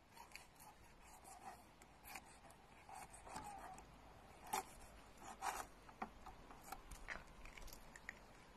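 Scissors snipping through mackerel while they are cleaned, with scattered small clicks and rubbing from handling the wet fish. A few sharper snips come in the middle.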